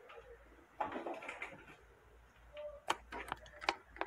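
Rustling, then a quick run of sharp plastic clicks and knocks in the second half, as a hand handles RCA audio cables and plugs at the back of a home theater receiver.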